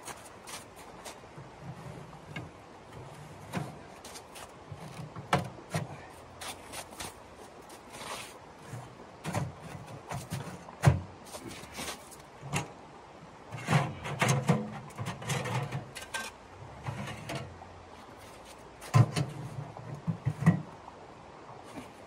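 Small sheet-metal wood stove being assembled by hand: irregular metal clanks, clicks and knocks as its legs and chimney pipe are fitted, with clusters of dull thumps.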